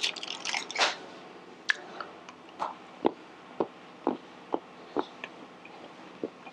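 A person chewing a crunchy chocolate bar with cashews in it, with short crunches about twice a second. A brief crinkle of the bar's foil wrapper comes in the first second.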